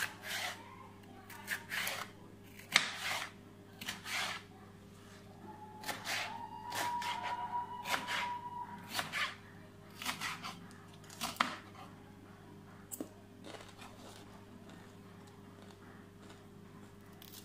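A kitchen knife slicing a green bell pepper on a plastic cutting board: a long run of short cuts at an uneven pace, thinning out near the end.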